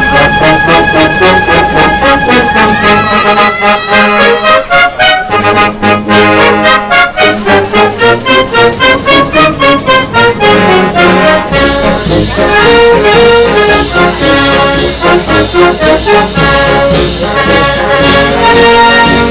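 Municipal wind band of clarinets, saxophones and brass with bass drum playing a piece. The notes are short and detached at first; a little past halfway the full band comes in with percussion, fuller and steadier.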